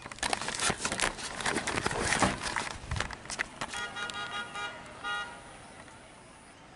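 Glitch-style video transition sound effect: a sudden burst of crackling digital static, then a stuttering electronic tone in short pulses that dies away about five seconds in.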